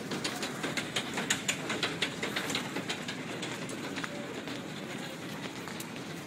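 Footsteps on a hard station floor, sharp clicks several a second, over a steady rumble of Underground station noise; the clicks thin out after about two and a half seconds.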